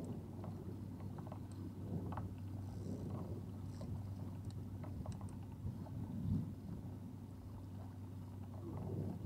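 Wind and water around a small fishing boat moving on open water, with a steady low hum underneath and a few faint clicks.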